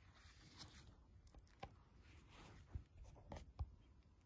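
Near silence in a small room, with faint scattered rustling and a few soft taps.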